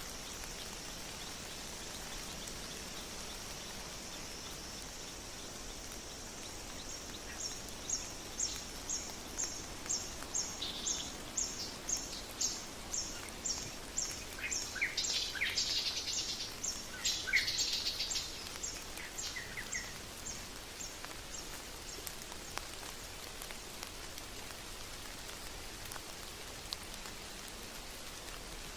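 Steady rain falling, with a bird calling over it: a long run of short, high, evenly repeated notes, about two a second. Other calls join briefly near the middle, then the calling stops and only the rain is left.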